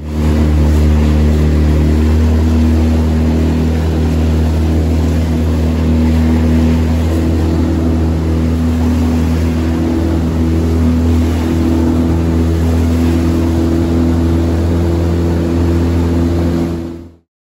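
Motorboat engine running loud and steady at a constant speed, its pitch shifting only slightly, cutting off abruptly near the end.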